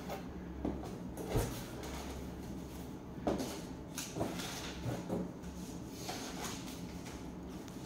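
Cardboard box flaps being opened and packaging handled inside the box: rustling of cardboard and paper with several soft knocks and scrapes, the clearest about one and a half and three seconds in.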